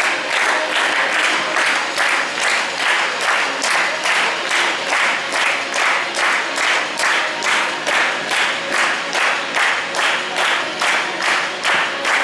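Audience clapping in unison to a steady beat, about three claps a second.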